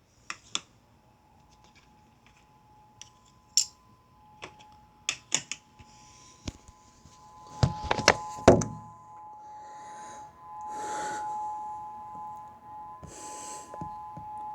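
Distant outdoor warning siren sounding a faint, steady note made of two tones together. Over it come scattered sharp clicks and knocks, the loudest a cluster of thumps about eight seconds in, and a few short rushing noises later on.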